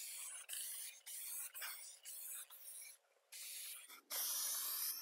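Aerosol spray can of clear coat hissing in a series of short bursts as coats are sprayed onto automotive body panel paint, with a longer burst of about a second near the end.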